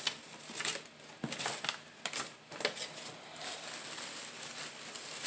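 Crumpled packing paper being unwrapped, rustling and crinkling in irregular bursts.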